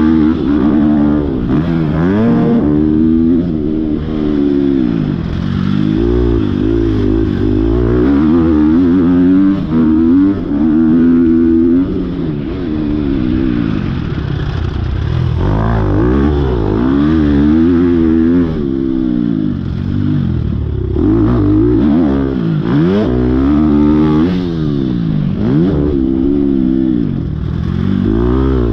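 Motocross dirt bike engine being ridden hard, revving up and backing off over and over, its pitch climbing and dropping every second or two.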